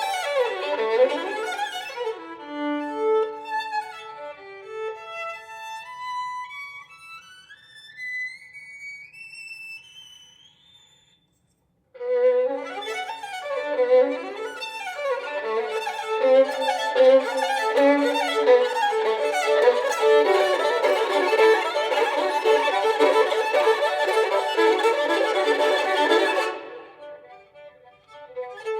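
Violin playing a contemporary concert piece: sparse notes thin out into a quiet line of single notes climbing stepwise higher and fading away, a second of silence, then a dense, rapid passage that breaks off suddenly near the end.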